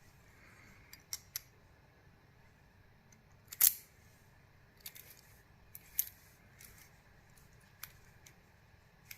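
Small, irregular metallic clicks and clinks as a Yale 2100 lock and its key are handled, the loudest about three and a half seconds in.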